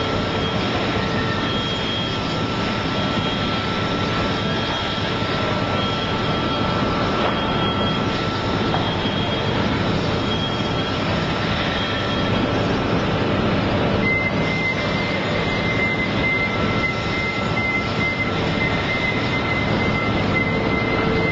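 Forklift truck with a reel clamp attachment at work in a steady, loud industrial drone, with a short high beep repeating about once a second. From about halfway through, a second, lower beep repeats more quickly.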